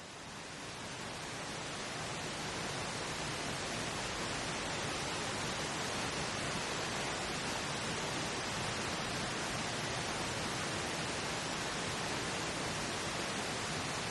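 Steady pink noise, an even hiss with no tones or events, fading in over the first few seconds and then holding level.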